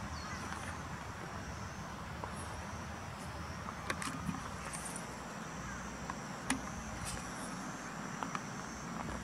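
Outdoor ambience: faint insects trilling steadily over a low background rumble, with a few short clicks about four and six and a half seconds in.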